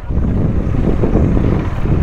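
KTM Duke 390 single-cylinder engine running as the motorcycle rolls slowly at low speed, mixed with wind rumble on the microphone.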